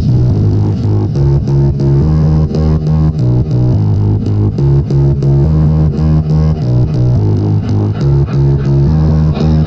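Music played loud through a large sound system under test, with a heavy, repeating bass line and plucked guitar-like notes over an even beat.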